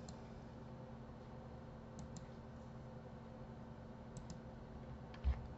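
A few faint computer mouse clicks, some in quick pairs, over a steady low electrical hum, with a dull low thump near the end.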